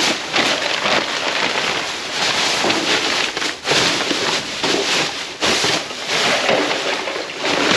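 Thin plastic trash bags crinkling and rustling loudly as a gloved hand grabs and shifts them, with short pauses about three and a half and five and a half seconds in.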